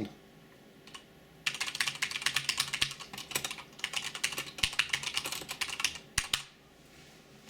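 Typing on the Akko Ocean Star 84-key mechanical keyboard: a quick run of key clicks lasting about four seconds, starting about a second and a half in, followed by a couple of sharper single key presses.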